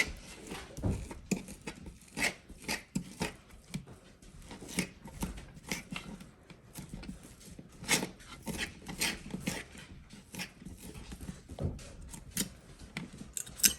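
Two forks shredding cooked pheasant breast, with irregular clicks and scrapes of the forks against the pan.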